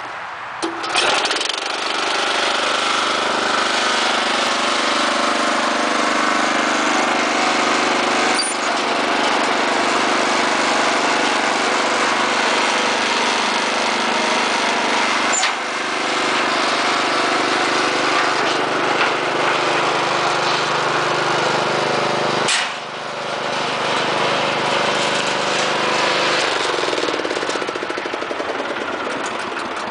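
Honda gasoline engine of a Whiteman mortar mixer pull-started, catching about a second in and running steadily, with brief dips a few times; it quietens near the end.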